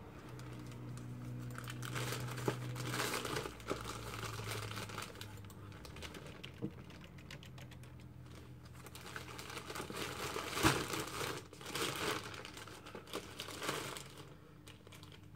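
Plastic packaging crinkling and rustling as it is handled and unwrapped, in two longer stretches, with a sharp tap about ten and a half seconds in.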